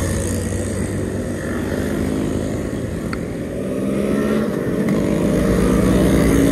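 A convoy of Yamaha RX100 two-stroke single-cylinder motorcycles riding past one after another, several engines running together; the sound dips a little in the middle and grows louder toward the end as more bikes come close.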